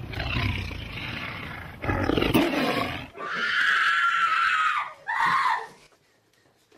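A wild cat, meant as a bobcat, roaring loudly twice, followed by a long high cry and a shorter one that dips and rises.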